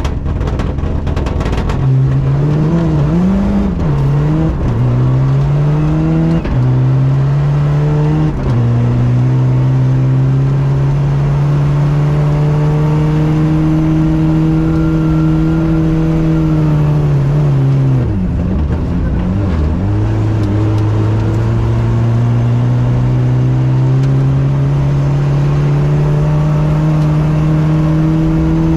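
Rally car engine heard from inside the cockpit, accelerating hard up through the gears: the pitch climbs and drops sharply at three quick upshifts in the first eight seconds, then holds high and steady. About eighteen seconds in the revs dip and waver as the driver lifts, then climb slowly again.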